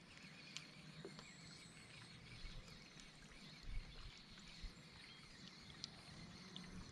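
Near silence: faint outdoor ambience with a few small, quiet clicks.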